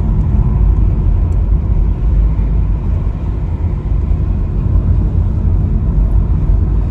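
Ford Mustang convertible driving steadily: an even, loud low rumble of engine, tyres and air noise with no change in pace.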